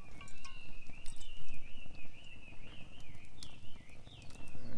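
Water pouring in a steady stream from a plastic bottle into a small metal cup, with a wavering ringing tone from the filling cup.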